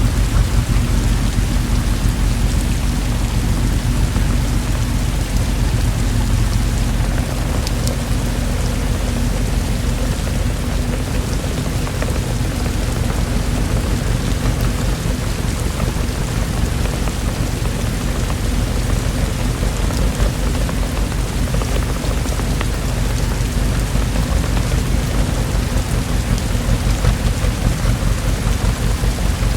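Steady, heavy rainfall: an even hiss of rain with a constant deep low rumble beneath it and no distinct claps.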